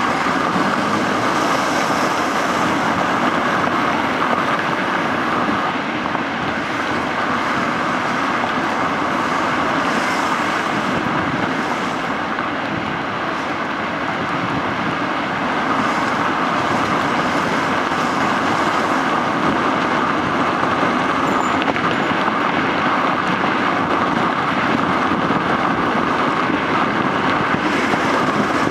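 Steady road noise from a car driving through city traffic: tyre and engine noise with some wind, dipping slightly about halfway through.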